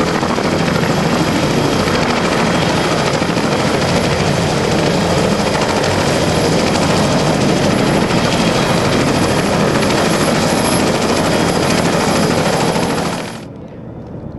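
CH-46 Sea Knight tandem-rotor helicopters running close by on the ramp: a loud, steady rotor and engine noise with a thin high whine. About 13 seconds in it cuts off suddenly to a much quieter, distant sound.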